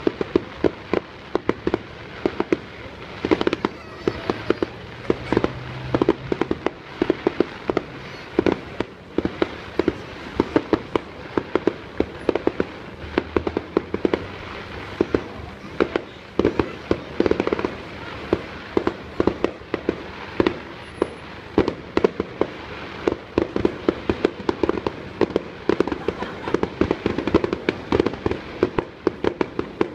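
Fireworks display going off without a break: a dense, continuous run of sharp bangs and crackles, several a second.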